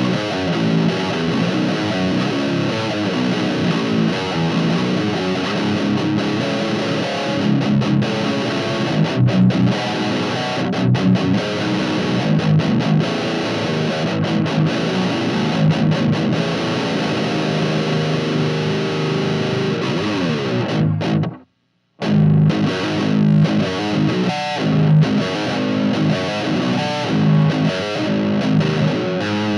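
Heavily distorted electric guitar with Fishman Fluence active pickups, played through an amp and speaker cabinet. It plays continuous riffs, with a sudden full stop of about half a second some two-thirds of the way in before the riffing starts again.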